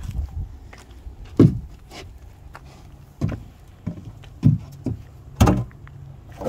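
Hollow plastic knocks and bumps of a cut-down 55-gallon plastic barrel being handled and set down into a dug hole: four louder knocks, irregularly spaced, over a low steady hum.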